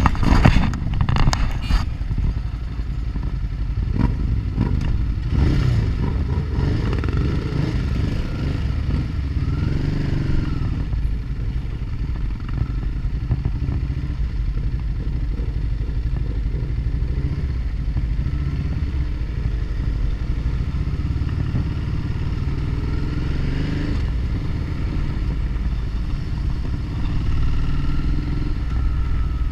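Motorcycle engine running at riding speed with steady wind and road noise, heard from on the bike; the engine's pitch rises and falls a couple of times with the throttle. A few sharp clicks in the first couple of seconds.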